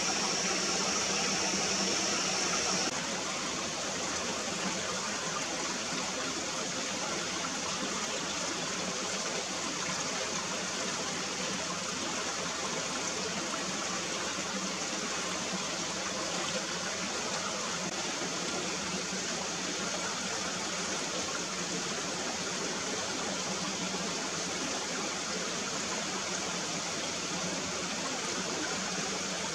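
Shallow stony stream flowing: a steady rush of water that drops slightly in level about three seconds in.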